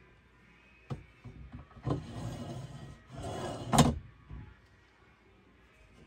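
IKEA wardrobe door being handled and opened: a click about a second in, two stretches of sliding, rubbing noise, then a sharp knock near four seconds in.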